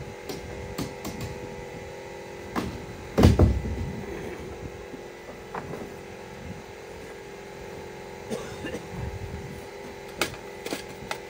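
Irregular sharp knocks and thumps of work on wooden board-and-batten siding, the heaviest about three seconds in, over a steady mechanical hum.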